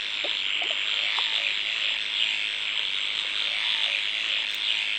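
Steady rushing, hissing noise of tooth-brushing that starts and stops abruptly, with a few faint light knocks early on.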